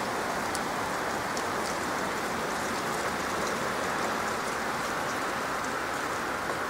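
Wet sleet and rain falling in the wind: a steady hiss with scattered light ticks of drops striking.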